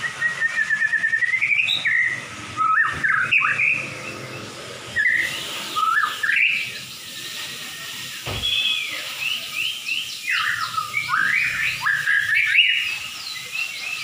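White-rumped shama (murai batu) singing from its cage: a varied song of clear whistled phrases that rise and fall, in bouts with short pauses, opening with a quick run of rising repeated notes.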